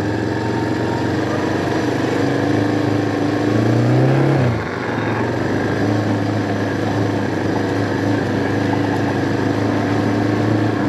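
Vehicle engine running steadily at low speed while following cattle. It revs up briefly about four seconds in, then drops back as the throttle comes off.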